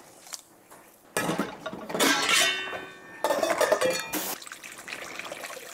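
Kitchen handling noises in two bursts, about a second in and about three seconds in: a takeout container of kimchi stew being unwrapped and a stainless steel pot clinking, with liquid sloshing.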